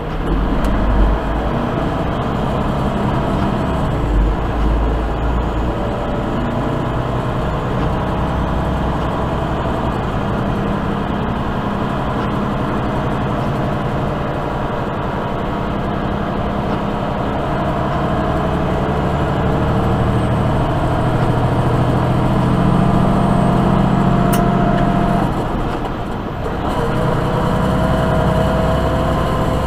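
A semi truck's diesel engine drones steadily inside the cab over tyre and road noise on a snowy highway. The engine note shifts slowly, and the level dips briefly near the end.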